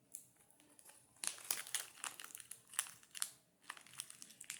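Crinkling of plastic packaging being handled: a dense run of short crackles starting about a second in.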